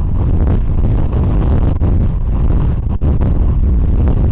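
Strong Santa Ana wind gusting across the microphone: a loud, low, buffeting rush that flutters without letting up.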